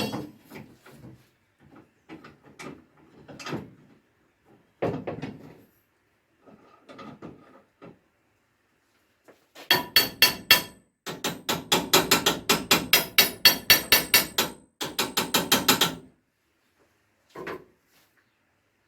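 Metal clamp and bar being handled and fitted, with scattered knocks and clatter. About ten seconds in come three runs of rapid, sharp metallic strikes, about five a second, that ring briefly.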